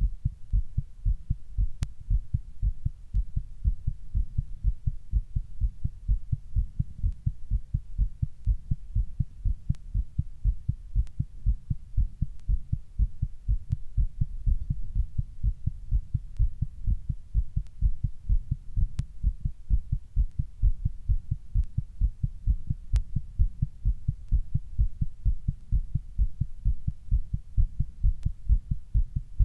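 A person's heartbeat recorded close up, beating fast and steadily as a quick, even train of low thuds.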